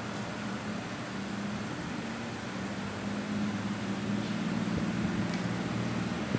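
Audi A7's engine idling at a standstill: a steady low hum, a little louder in the second half.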